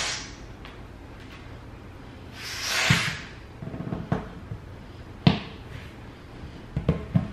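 Hand air pump inflating an exercise ball: strokes of rushing air, one at the start and a longer, louder one about three seconds in. A sharp knock a little past five seconds in and a run of knocks and thumps near the end come from handling the pump and ball.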